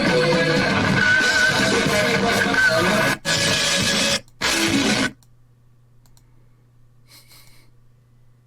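A rock band playing live with electric guitar, heard through low-quality phone-recorded clips that cut out briefly twice and then stop about five seconds in, leaving a low steady hum.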